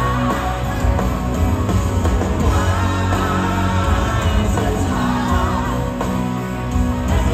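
Rock band playing live on stage, with electric guitars, bass and drums under a singer's vocal line.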